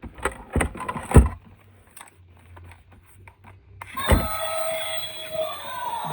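Several sharp knocks and clatters, like hard plastic toys being handled and set down, then a few light clicks. A thud about four seconds in, as background music begins.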